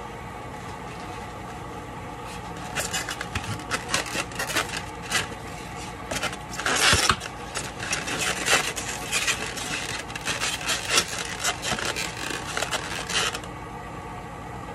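Foam clamshell takeout containers being handled on a counter: a busy run of rubbing, scraping and light knocks that starts about three seconds in and stops about a second before the end, loudest about halfway through.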